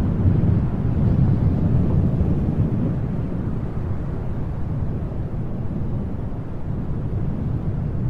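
Wind blowing as a steady low rumble that swells over the first two seconds or so and then eases slightly.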